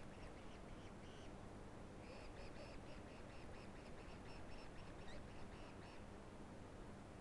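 Faint run of short, high chirping calls, about four a second, from about two seconds in until about six seconds in, with a few scattered chirps just before.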